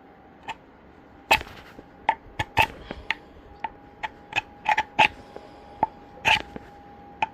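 Knife blade scraping and clicking against a sheath while picking off a price tag: a run of irregular sharp clicks and short scrapes, some of them loud.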